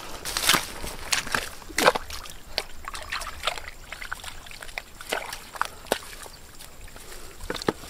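Hands squelching and splashing through wet mud and shallow muddy water while grabbing eels: a run of irregular wet splats and slops, the loudest a little before two seconds in.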